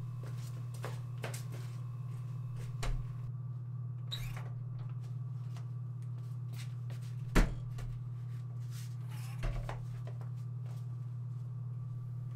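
Front door with a keypad lock being handled, opened and shut: soft clicks, with a sharp knock about halfway through and smaller ones a few seconds before and after, over a steady low hum.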